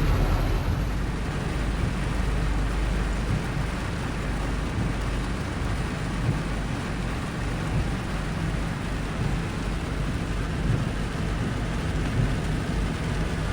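Steady rain falling, an even hiss over a deep, constant low rumble.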